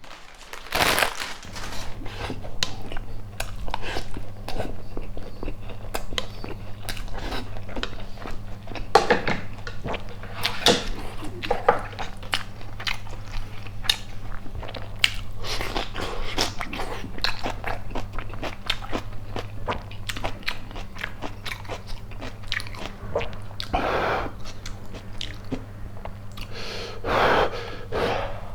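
Close-miked chewing and biting of a chicken-mayo rice burger, a dense run of small wet mouth clicks and crunches over a low steady hum.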